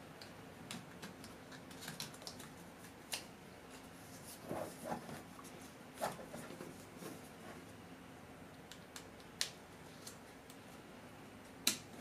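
Faint clicks and taps of plastic laptop parts being handled as a keyboard ribbon cable is seated into its connector and the palm rest is lined up. A few sharper single clicks are spread through it.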